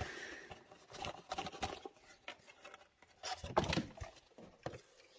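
Packaging being handled during unboxing: scattered light taps, clicks and rustles, with a busier cluster about three and a half seconds in.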